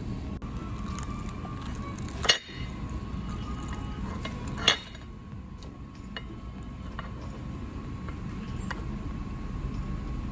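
Metal fork clinking against a ceramic plate and sauce dish: two sharp clinks about two and a half seconds apart, with a few lighter taps, over a steady low background hum.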